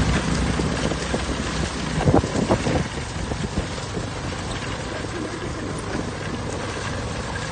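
Wind buffeting the microphone while riding a motor scooter along a dirt road, the scooter running underneath. A few short sharp sounds come about two seconds in.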